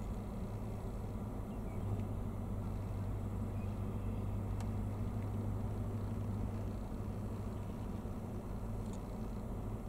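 Steady low hum of an idling engine over a faint rumble, with a faint tick about four and a half seconds in.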